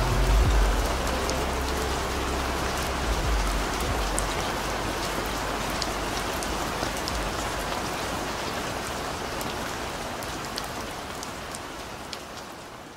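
Steady rain falling, a dense hiss with scattered sharp drop ticks, over a low rumble for the first several seconds; the whole sound fades out gradually toward the end.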